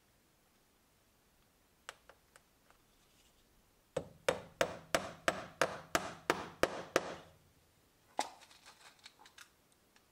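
Upholstery tack hammer driving tacks through cloth into the wooden seat rail of an antique chair: a few light taps, then a run of about ten sharp strikes at roughly three a second, then a few softer taps.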